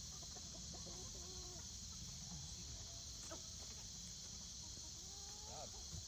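Chickens clucking, with several short, faint calls that rise and fall in pitch as the flock is chased about.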